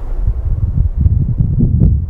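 Wind buffeting the camera microphone, a loud uneven low rumble rising and falling in gusts, with a brief click near the end.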